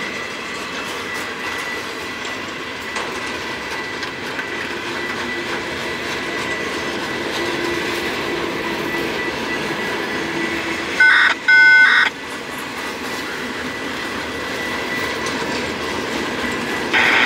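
Freight train cars rolling past on steel wheels, with a thin steady high ring over the rolling noise. About eleven seconds in come two short loud pitched tones, a brief one and then one just under a second long.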